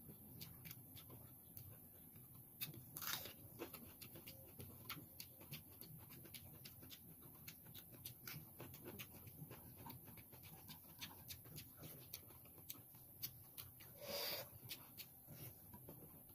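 Faint close-up chewing and mouth sounds of a person eating by hand, with many small clicks and smacks. Two short, louder breathy noises come about three seconds in and near the end.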